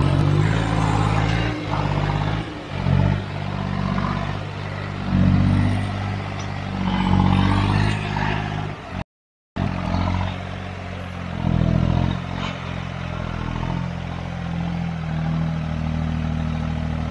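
Turbocharged tractor diesel engine labouring under heavy load as it drags a weighted 20-disc harrow, its note rising and falling again and again. The sound breaks off briefly just after nine seconds in.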